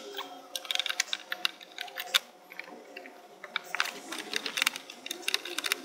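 Irregular quick clicks and small rattles of a T10 Torx tool working the hidden third headlight mounting screw of a Ford Ka, coming in short clusters with gaps between.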